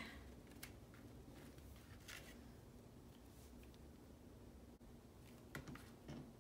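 Near silence: a few faint rustles and light taps of paper die-cut pieces being handled and set down on a scrapbook page, one about two seconds in and a small cluster near the end.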